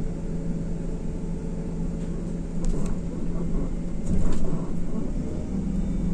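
Cabin noise inside an IVECO Crossway LE bus with a Cursor 9 diesel engine: a steady engine hum and rumble, with a few clicks and rattles and a brief swell in loudness about four seconds in.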